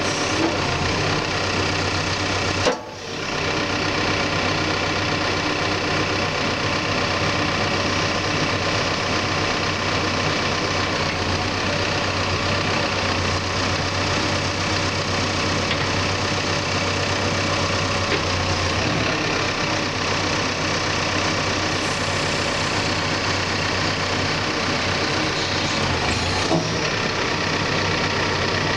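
Cat 420F backhoe loader's diesel engine running steadily during its startup procedure, with a brief drop in level about three seconds in.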